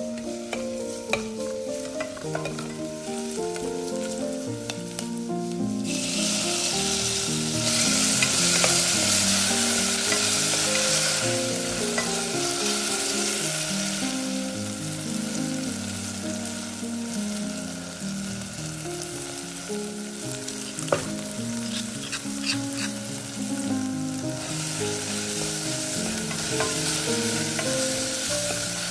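Food sizzling in hot oil in a pan while being stirred, with a few sharp clicks of the spoon against the pan. The sizzle starts about six seconds in and grows louder again near the end, over soft background music.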